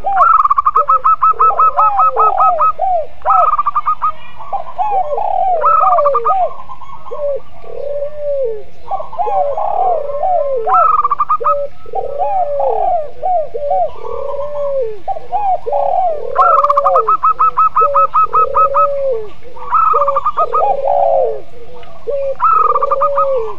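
Several doves cooing together, a mix of spotted dove (tekukur), zebra dove (perkutut) and local puter dove: low, arched coos repeat without a break while bursts of quick, even, higher notes, about ten a second, come in every few seconds, the longest near the start and about two-thirds of the way through.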